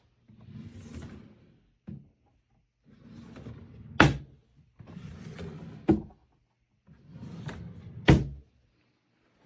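Dresser drawers sliding along their runners four times, three of the slides ending in a sharp knock as the drawer hits its stop.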